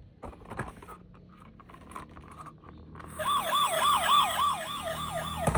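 Toy emergency vehicle's siren switching on about three seconds in, a fast yelp rising and falling about four times a second, after a few light plastic clicks from handling.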